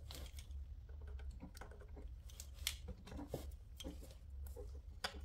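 Faint, scattered clicks and light plastic taps from handling a Mercedes W164 instrument cluster's circuit board and LCD ribbon-cable connector with a small screwdriver, over a steady low hum.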